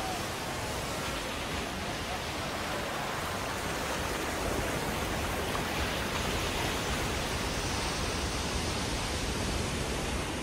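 Ocean surf crashing and churning over rocks, a steady rushing wash of white water.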